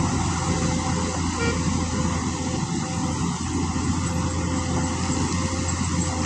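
Heavy diesel construction machinery running steadily, a constant low engine hum with no clear changes.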